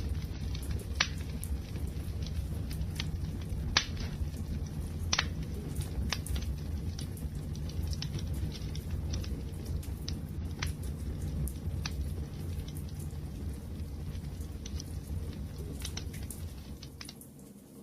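Fire burning with a steady low rumble and irregular sharp crackles and pops, briefly fading near the end.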